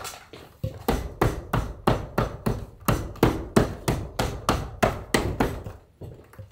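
Leather saddle seat being worked down by hand: a quick, regular run of short strokes, about three a second, as the leather is pressed and rubbed in to compress a wrinkle in the seat.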